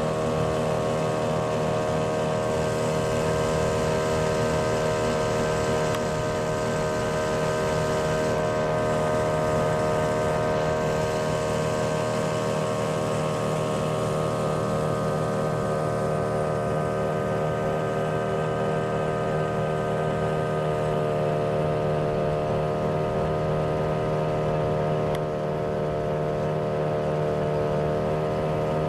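Motorboat engine running steadily at an even speed, a constant drone with no pauses.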